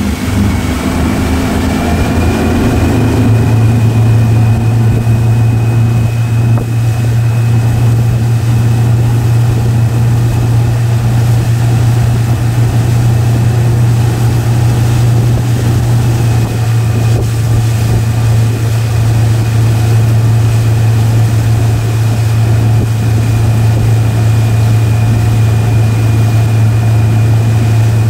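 Motorboat engine running at speed while towing a loaded inflatable tube, a steady low drone that settles in about three seconds in, over an even rush of noise.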